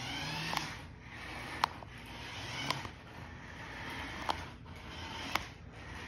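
Spin Master Monster Jam toy remote-control monster trucks driving: small electric motors and plastic gearboxes whirring in surges, with a sharp click about once a second.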